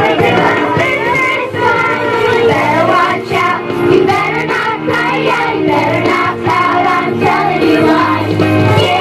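A children's choir singing with instrumental accompaniment.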